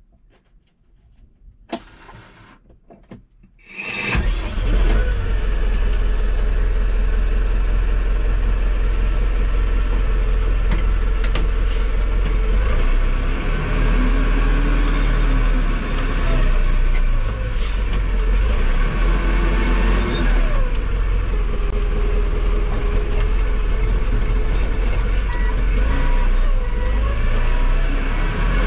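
Compact loader's engine starting about four seconds in after a few clicks, then running steadily as heard from inside the cab. Its pitch rises and falls a few times as the machine moves off.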